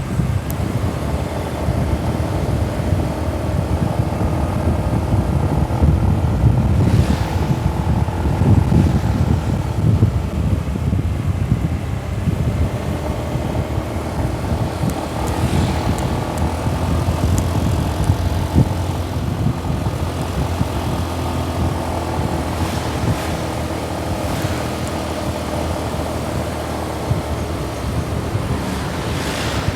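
Road vehicle engine running steadily under a heavy, deep wind rumble on the microphone, with a few brief louder swells.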